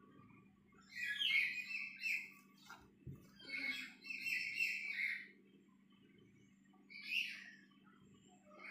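Domestic cat meowing three times in long, high calls, the middle one the longest, with a soft knock about three seconds in.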